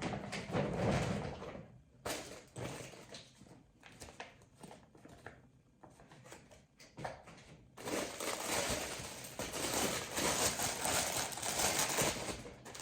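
Plastic packaging rustling and crinkling as items are handled, loud in the first two seconds, quieter and patchy in the middle, then loud and continuous over the last five seconds.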